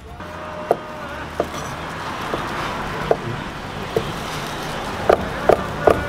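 Knife chopping boiled pork liver and lung on a wooden cutting board: about seven sharp, irregular knocks, coming quicker near the end, over steady street traffic noise.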